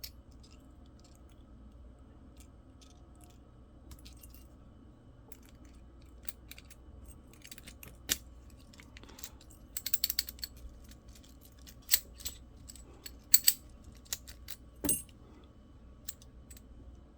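Scattered small metallic clicks and rattles as a Commando padlock and its key are handled, sparse at first, then a quick cluster of clicks about ten seconds in and a few sharper clicks near the end.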